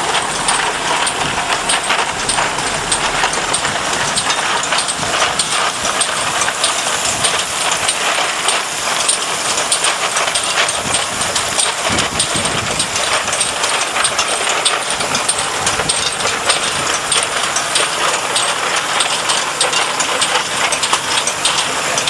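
Automatic ultrasonic vial-washing machine running steadily: a constant mechanical noise and hiss, dotted with many small, rapid clicks.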